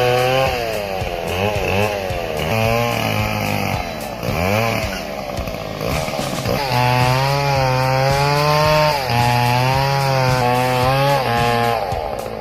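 Chainsaw cutting wood, its engine pitch rising and falling again and again as it is throttled, running more steadily from about seven seconds in.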